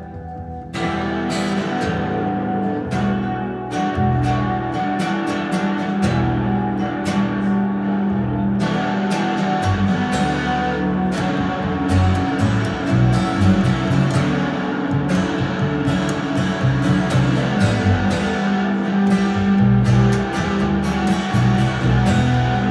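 Upright double bass played pizzicato, its low plucked notes under an acoustic guitar picking rapid notes. The two play an instrumental piece together, with a brief lull right at the start.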